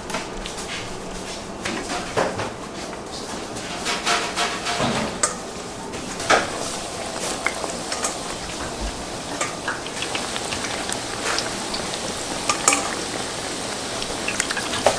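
Metal utensils and pans clinking and clattering irregularly over a steady hiss.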